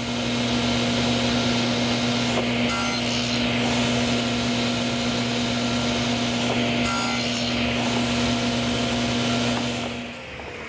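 Table saw running and cutting wood, its blade set low to nibble away the waste of a mitered lap joint as the board is pushed across on a miter gauge; the cutting noise swells twice. The saw's hum cuts off near the end.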